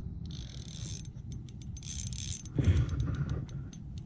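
Close handling noise of scraping, rustling and scattered clicks while a hooked catfish is wrestled, with a louder low thump about two and a half seconds in.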